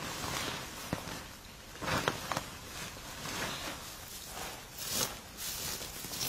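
Dry straw rustling as it is stuffed by hand into a woven plastic sack, then the full sack crinkling as it is lifted and carried, with footsteps shuffling through loose straw. The rustles come in irregular bursts with a few sharp clicks.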